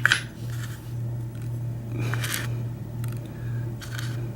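Small metal lock-cylinder parts (pins, drivers and springs) being handled: a sharp click at the start, then short scrapes about two seconds in and again near the end, over a steady low hum.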